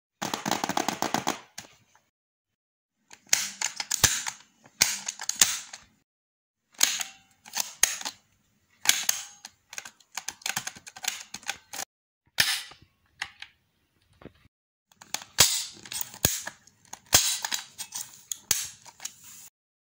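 A plastic multi-function pencil box being worked by hand: its push buttons, spring-loaded pop-out compartments and lid click and snap in short bursts of rapid, sharp clicks, with brief pauses between them.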